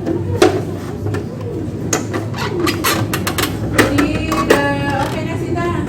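A run of sharp clicks and taps from the plastic parts of an Epson L120 inkjet printer being worked apart by hand, over a steady low hum. Near the end a pitched call with several held tones sounds.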